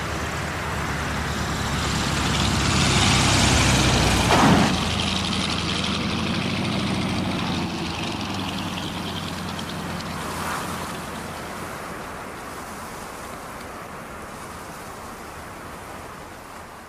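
Single-engine light propeller plane's engine running steadily, swelling to its loudest about four seconds in, then fading away gradually.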